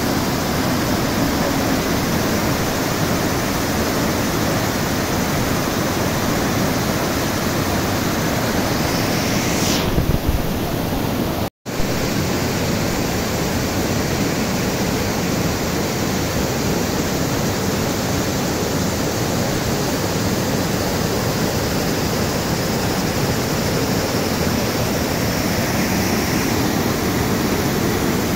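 Mountain stream rushing and cascading over rocks, a loud, steady roar of white water. There is a split-second break in the sound near the middle.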